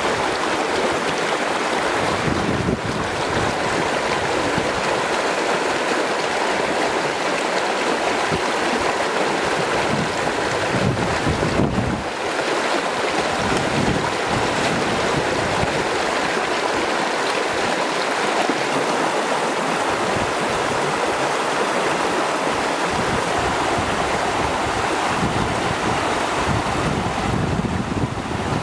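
A fast-flowing stream rushing steadily over rocks, with hands splashing in the water at times.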